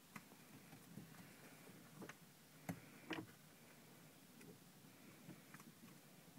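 Near silence with a few faint, sharp clicks and taps, the clearest about two to three seconds in.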